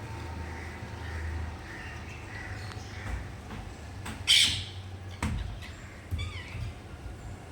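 Rose-ringed parakeet calling: one loud, harsh screech a little past the middle, with softer short chirps before and after it.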